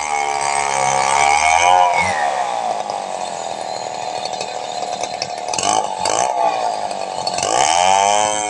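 Stihl 070 two-stroke chainsaw running hard while cutting timber. Its engine pitch sags about two seconds in, holds lower and steady through the middle as if under load in the wood, then climbs again near the end.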